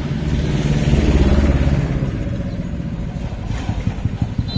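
A motor vehicle passing close by on the street, its engine rumble swelling about a second in and then fading.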